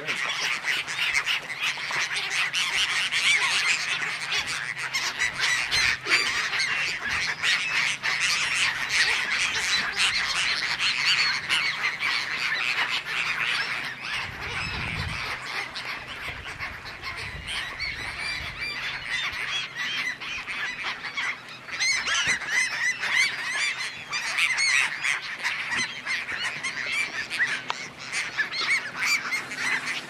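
A large feeding flock of gulls, herring gulls among them, cackling and yelling over one another in a continuous din of overlapping cries as they feast on a swarm of krill at the surface.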